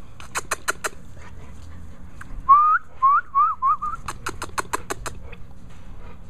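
A person whistling five short rising notes, between two quick runs of sharp clicks, to get a pit bull puppy's attention.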